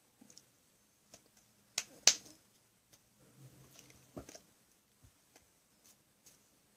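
Hands of a person signing tapping and brushing together: scattered sharp clicks and taps, the loudest pair about two seconds in and another near four seconds, with soft rustling between.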